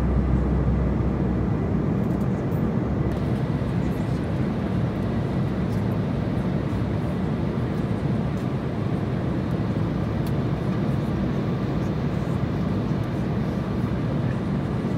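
Steady cabin noise of an airliner in cruise, heard from inside the cabin: a low, even rush of jet engines and airflow, with a faint steady high tone above it.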